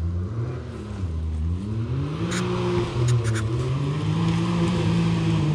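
An off-road vehicle's engine running, its revs dipping and then climbing about two seconds in and holding steady at the higher pitch. A few short sharp clicks come through in the middle.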